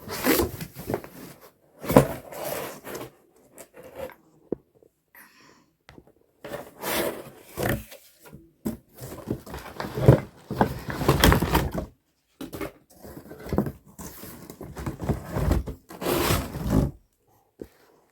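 A cardboard box and its packaging being opened and handled by hand: irregular bursts of scraping and rustling with gaps between them.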